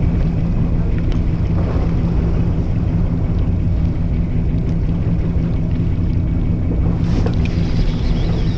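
Fishing boat's engine running with a steady low hum, with water washing along the hull and wind on the microphone.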